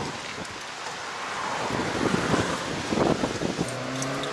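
Strong thunderstorm gust-front wind buffeting the microphone in irregular gusts. Near the end a car engine comes in, running with a steady hum.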